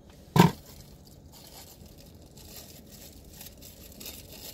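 Protective plastic film being peeled off a new action camera and its parts: faint crinkling and rustling with small clicks, after one short loud sound about half a second in.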